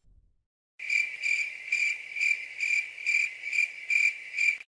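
Cricket chirping sound effect: a steady high-pitched chirp repeating about twice a second. It starts about a second in and stops just before the end.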